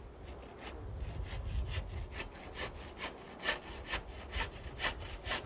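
Hand saw cutting across a wooden strip, in a steady rhythm of short rasping back-and-forth strokes: the strip is being cut to length.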